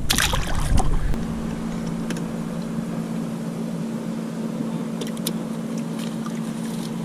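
Boat motor running steadily, a low two-note hum that comes in about a second in, after a short burst of noise.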